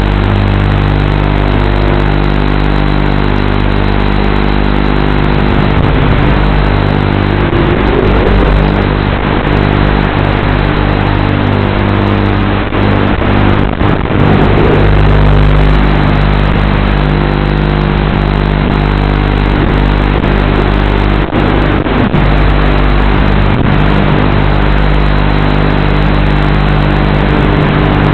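Racing quadcopter's brushless motors and propellers running continuously, picked up by the onboard camera's microphone, with short swoops in pitch as the throttle changes.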